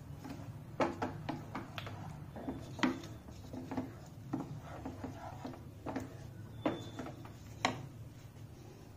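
A spoon stirring fresh cream into thick curry gravy in a cooking pan: irregular soft knocks and scrapes against the pan, with a few sharper clinks.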